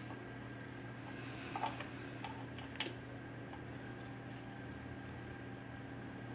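A few light clicks and taps of hand tools and wire being handled, the two sharpest together about a second and a half in and another near three seconds, over a steady low hum.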